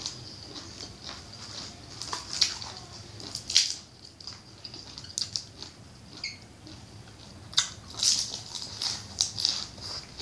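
Close-up chewing and crunching of crisp mouthfuls of green papaya salad and raw vegetables, with wet mouth clicks and smacks. The crunches come irregularly, the loudest about two and a half seconds in, again near three and a half seconds, and in a cluster around eight seconds.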